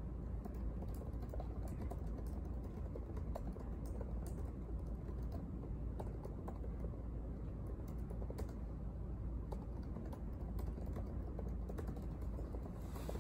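Typing on a laptop keyboard: irregular light key clicks over a steady low room hum.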